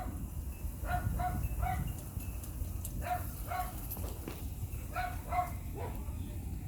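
A dog barking repeatedly: about seven short barks in three groups of two or three, over a steady low rumble.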